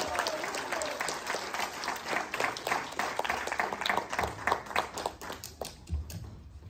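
Audience applause, dense clapping that thins out and dies away near the end.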